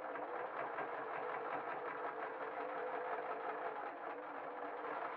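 Electric sewing machine running at a steady speed, the needle stitching rapidly as it sews a seam through felt and fake fur.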